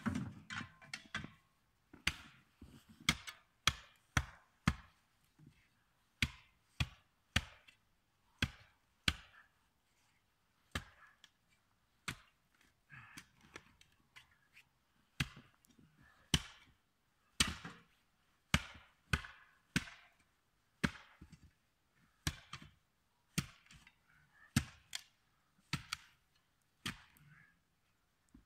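Repeated sharp chopping strikes of a hand tool into wood, ice or packed snow, irregular at about one to two a second with a few short pauses, and softer crunching between blows.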